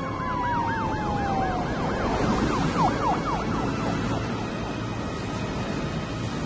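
Police car siren in yelp mode: a rapid up-and-down warble that speeds up and fades out about three and a half seconds in, with a single falling tone alongside it at the start, over a steady rushing noise.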